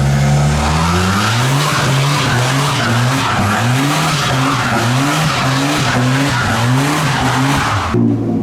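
Car tyres squealing and skidding under sustained wheelspin while the engine revs rise and fall over and over, roughly one and a half times a second. The tyre noise cuts off suddenly near the end, leaving the engine running.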